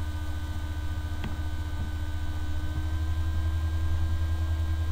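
Steady low electrical mains hum picked up by the recording microphone, with a few faint steady tones above it and one faint click about a second in.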